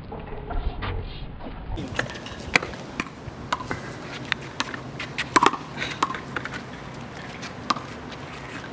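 Irregular sharp smacks and pings of a small rubber handball struck by hand and bouncing off concrete and a brick wall, with lighter clicks of shoes scuffing on pavement.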